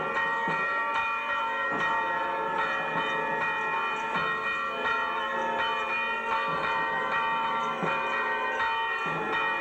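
Church bells ringing a continuous peal: repeated strokes about every half second to a second, with their tones hanging on between strokes.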